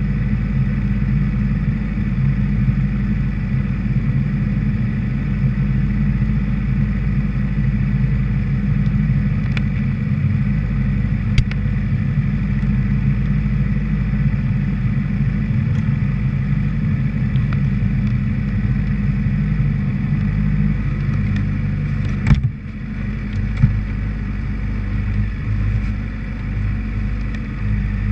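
Honda CBR600RR's inline-four engine idling steadily, heard close up from the bike. A single sharp knock about three-quarters of the way through.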